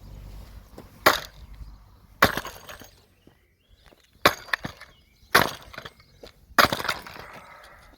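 Five sharp cracking knocks about a second apart, with smaller knocks between them: a Poulan Pro chainsaw's plastic housing being struck and broken apart.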